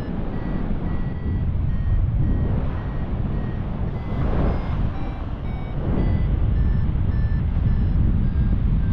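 Paragliding variometer beeping in short repeated tones, about three a second, whose pitch shifts up and down, the sign of climbing in uneven lift. Heavy wind noise on the microphone runs under it, swelling in gusts about four and six seconds in.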